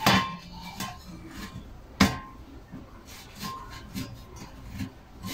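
Metal clanks from an empty steel gas cylinder being handled, its cut top section knocking against the body. Two sharp clanks with a brief ring come at the start and about two seconds in, with lighter knocks between.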